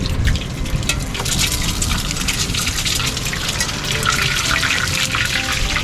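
Water running and gushing steadily, as from a tap, with a crackling splash.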